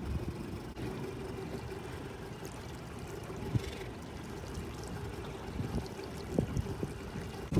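Water lapping and trickling, over a faint, steady hum from the engines of a large motor yacht moving slowly past.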